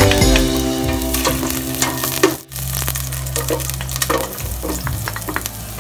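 Chopped garlic sizzling in hot oil in a stainless steel pot, stirred with a wooden spatula, with frequent small scrapes and ticks against the pot. Sliced onion is tipped in from a bowl partway through.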